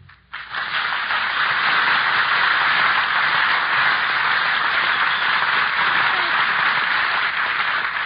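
Studio audience applauding, a dense, steady clapping that starts suddenly just after the start and keeps on for nearly eight seconds.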